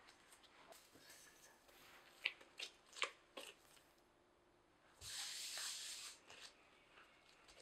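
Gloved hands kneading dough on a silicone pastry mat: a few soft slaps and presses, then about a second of rustling about five seconds in.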